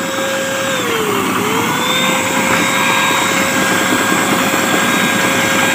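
Handheld electric paint spray gun running steadily while spraying roof-tile paint, a motor whine over a hiss of spray. Its pitch sags briefly about a second in and then recovers.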